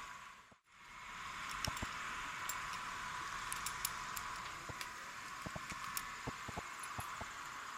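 Steady outdoor hiss with scattered light clicks and taps, cutting out briefly about half a second in.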